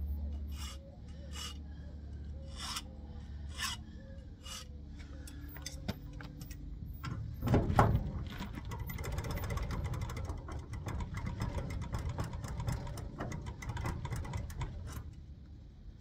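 Key blank gripped in locking pliers being worked in a garage door lock cylinder for key impressioning: metal clicks spaced out at first, a louder clunk about halfway, then a dense run of rapid clicking and scraping of metal on metal.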